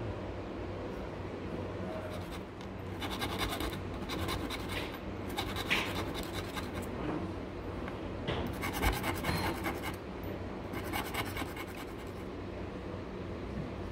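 Steel tool scraping the tapered wooden end of a Japanese chisel handle in three bursts of rapid strokes, shaving it down to seat the steel hoop.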